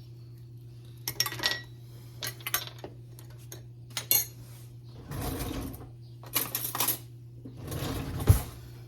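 Kitchen utensils and dishes clinking and clattering against each other and a bowl in a string of separate knocks, the sharpest one near the end.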